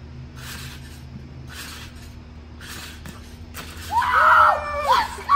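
Trampoline bouncing, a soft rustle about once a second with each jump, then loud excited shouting and screaming from about four seconds in, the cheer of a made trick shot.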